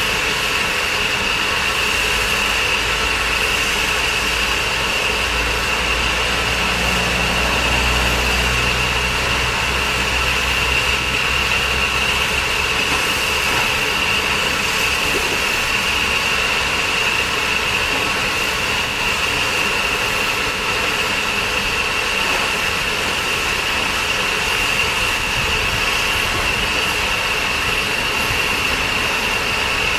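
Steam locomotive 53809, a Somerset & Dorset Joint Railway 7F 2-8-0, standing with a steady, loud hiss of escaping steam that holds one high, even note. A low rumble underlies it for the first ten seconds or so.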